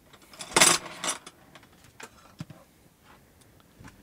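Hand handling of tools and their packaging at a shelf: a short rustle about half a second in, a smaller one soon after, then scattered light clicks and ticks.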